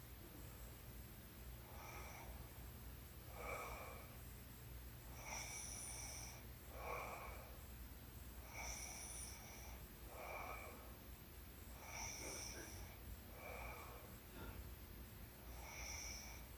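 A sleeping woman snoring softly, her breaths coming in a slow, even rhythm of about one every three seconds.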